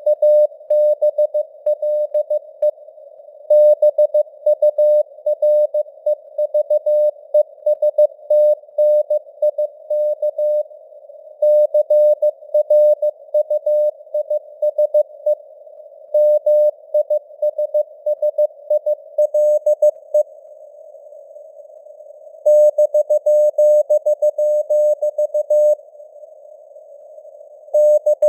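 Morse code (CW) sent at 15 words per minute: a single steady beep keyed on and off in dots and dashes, over simulated narrow-band radio noise. The keying is broken by a few pauses of one to two seconds.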